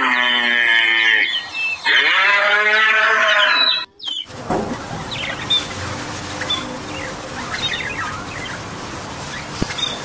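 Zebu cattle mooing: two long, drawn-out moos, the second starting about two seconds in. An abrupt cut about four seconds in leads to quieter, scattered soft chirps from caged budgerigars.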